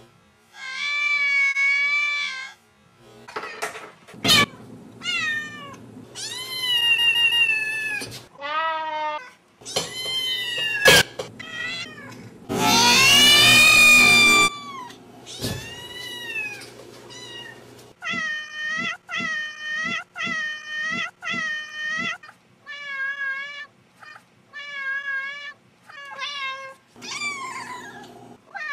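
Kittens meowing in a chopped-up edit. The meows start and stop abruptly, with a couple of sharp clicks. From about two-thirds of the way through, one short meow is repeated several times in a row at an even pace.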